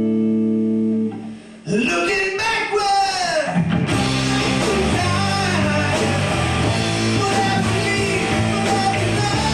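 Live rock band on electric guitars and drum kit. A held chord cuts off about a second in, a sliding note falls in pitch, and about four seconds in the full band comes in playing.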